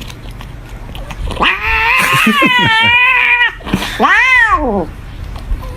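A cat yowling: two drawn-out calls, the first about two seconds long and wavering in pitch, the second shorter, rising and then falling.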